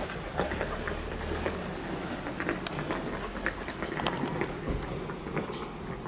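Outdoor street noise: a steady low rumble, with scattered clicks and scuffs from footsteps on wet pavement.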